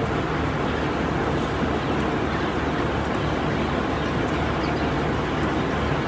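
Large ventilation fans of an enclosed poultry shed running: a steady machine drone with a low hum underneath.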